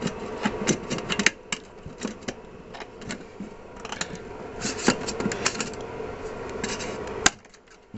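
Plastic and metal parts of a CRT monitor being handled and pried apart by hand: irregular clicks and rattles over a steady hum. It all stops with a sharp click near the end.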